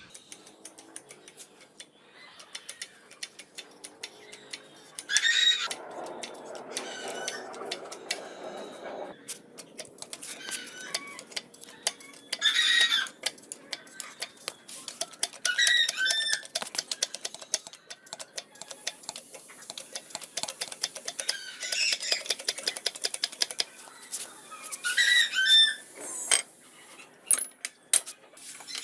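Manual hydraulic pipe bender being pumped by its hand lever as it bends a metal tube: a steady run of clicks and knocks, with a short high squeak every few seconds.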